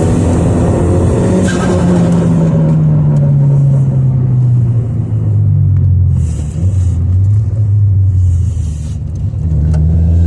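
Abarth 595's turbocharged 1.4-litre four-cylinder engine, fitted with a TD04 turbo and a sports cat, running loud with its revs falling slowly for about six seconds and then holding low. Short bursts of hiss come with it about a second and a half in and twice more in the second half, consistent with turbo flutter and the Forge dump valve venting.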